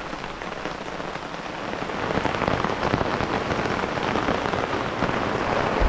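Heavy rain coming down hard, a dense hiss of many drop hits that grows louder about two seconds in.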